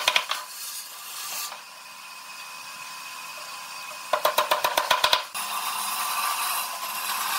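Rapid run of sharp mechanical clicks, about ten a second, from a workshop tool. It comes twice, briefly at the start and again for about a second some four seconds in, with a steady hiss in between.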